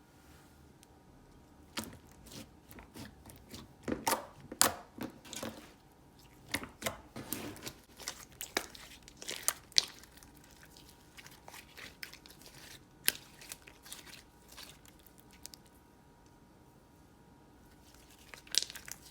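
Slime being worked by hand, giving irregular sticky crackles and pops. They come thickly through the first half, thin out into a quieter stretch, and bunch together again briefly near the end.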